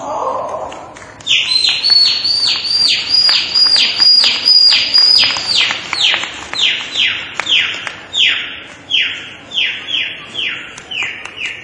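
A person mimicking a baby chick's distress peeping: a long run of short, high, falling peeps starting about a second in, at about three a second at first and then spacing out and falling a little lower in pitch. This is the cry of a chick that has been stepped on by the hen.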